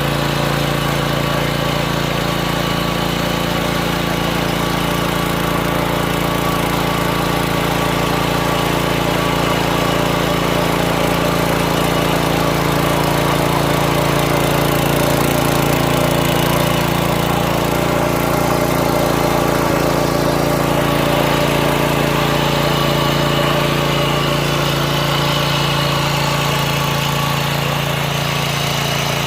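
Mini tiller's small engine running at a steady speed, its note holding even throughout.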